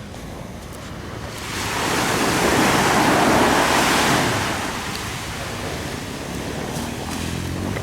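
Small sea wave washing up the beach: a swell of surf noise that rises about a second and a half in, peaks, and falls away a few seconds later.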